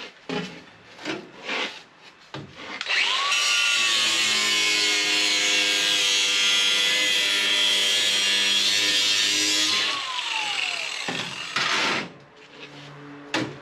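Angle grinder grinding the edge of a sheet-metal panel to trim it. It spins up with a rising whine about three seconds in, runs steadily for about seven seconds, then winds down with a falling whine. A few short knocks of the panel being handled come before it, and a few more after.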